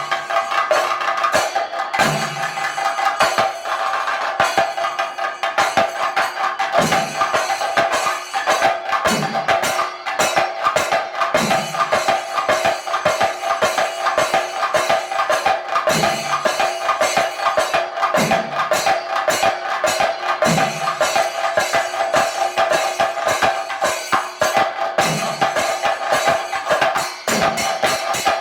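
Chenda drums playing thayambaka: a fast, dense roll of stick strokes, with a deeper stroke coming about every two seconds.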